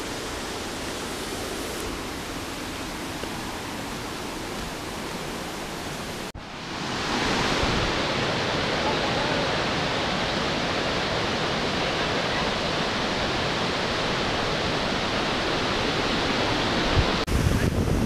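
Steady rush of a waterfall and stream running over rocks. It breaks off suddenly about six seconds in and comes back louder.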